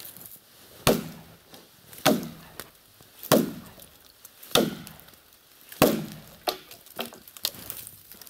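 Axe chopping into a standing dead tree: five heavy blows about one and a quarter seconds apart, then a few lighter knocks near the end.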